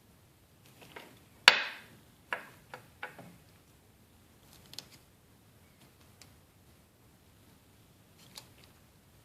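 A few sharp clicks and taps from handling tools and work on a soldering bench. The loudest comes about a second and a half in, followed by a quick cluster of lighter taps and two isolated ones later.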